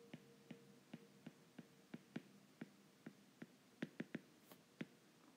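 Faint, irregular clicks of a stylus tapping on a tablet screen during handwriting, about two or three a second.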